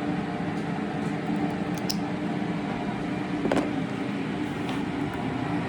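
Steady machine hum, like a fan or motor running, with a couple of faint clicks.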